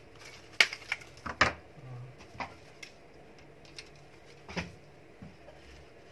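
Hands handling a cardboard gift box and artificial flowers: a few sharp clicks and taps in the first second and a half, another about two and a half seconds in, and a knock about four and a half seconds in.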